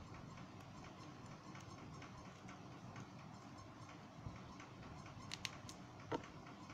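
Small precision screwdriver driving tiny screws into a mobile phone's plastic rear frame: faint light ticks and scrapes, with a few sharper clicks near the end. The loudest is a sharp click with a brief ring about six seconds in, as the screwdriver is set down on the wooden desk.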